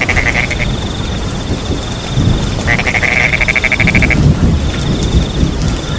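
Frogs trilling in rapid pulsed calls, a short one at the start and a longer one of about a second and a half midway, over a steady chorus of crickets chirping. Beneath them, rain falls with low rumbling that swells in the middle.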